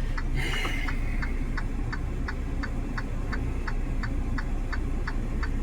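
Steady, evenly spaced ticking, about three ticks a second, over a low steady rumble.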